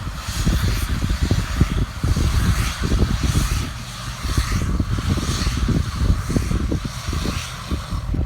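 Wind buffeting the microphone in irregular gusts, a ragged low rumble.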